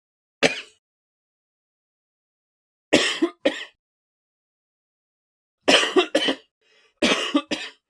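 A person coughing in separate short takes with silence between: a single cough, then a double cough about three seconds in, and two quick runs of three coughs each near the end.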